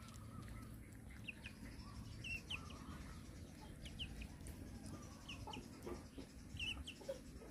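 Young chicken peeping: faint, short, high chirps, mostly in pairs, repeating about once a second.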